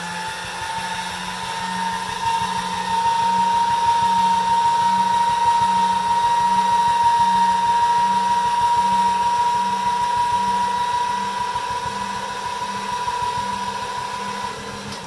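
Electric pasta machine's motor running the noodle-cutter rollers, a steady high whine over a pulsing low hum, a little louder from about three seconds in.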